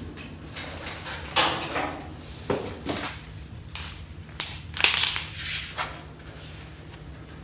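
Steel fender of a 1965 VW Beetle being handled and offered up to the body: a handful of short scrapes and clunks of sheet metal at irregular intervals.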